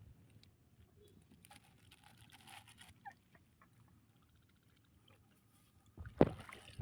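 Faint splashing and rustling in shallow water, then a sharp, loud slap of water about six seconds in.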